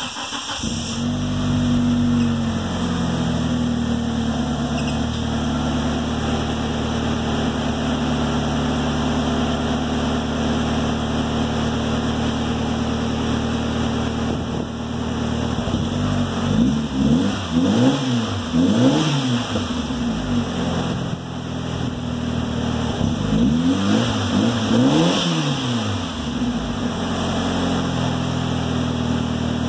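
Mitsubishi RVR Hyper Sports Gear R's turbocharged 4G63 four-cylinder, breathing through an RS*R cat-back and a 3-inch catless stainless downpipe, just after a cold start. It catches, settles into a fast cold idle, and partway through is revved in a quick series of blips, then a second series a few seconds later, each time dropping back to idle.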